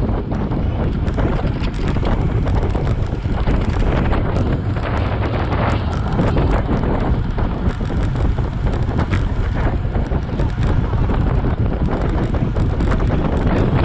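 Wind rushing and buffeting on the microphone of a camera on a road bike riding along a road, steady with frequent crackles.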